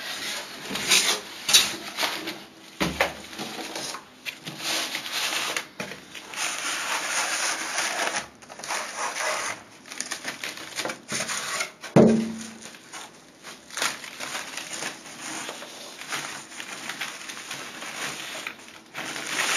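Plastic wrapping crinkling and polystyrene foam packing rubbing and creaking in irregular bursts as a computer monitor is lifted out of its box, with a sharp knock about twelve seconds in.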